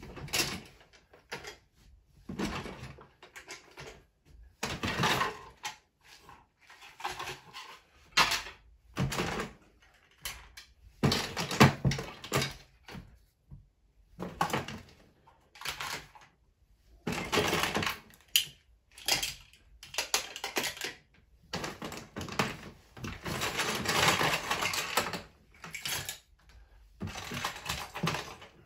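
Plastic Playmobil toy train parts being handled and set down, clattering and knocking together, with small plastic bags of parts rustling. The noises come in irregular bursts with short pauses between.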